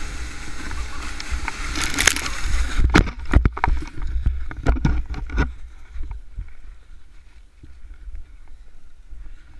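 Sled towed fast over packed snow, a rough rushing and scraping with wind on the microphone, then a crash: a string of loud knocks and thumps over about two seconds as the sled and camera tumble in the snow.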